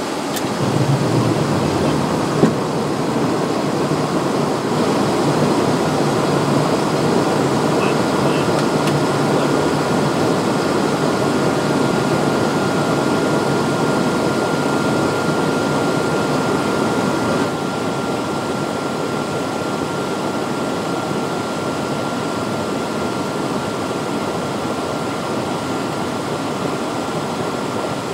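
Steady cockpit noise of a Cessna Citation Encore business jet on its landing approach: engine and airflow noise with a faint steady whine. There is a short knock about two and a half seconds in, and the noise eases slightly a little past halfway.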